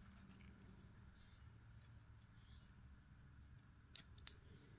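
Near silence with a faint steady hum; near the end, a few faint scratches of a pencil tip going over the incised lines in a leather-hard clay bowl.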